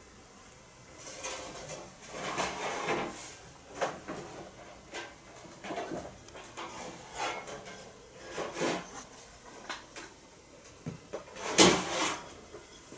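A cat shifting about inside a thin wooden storage box: irregular scrapes, rustles and creaks of the wood, with the loudest knock near the end.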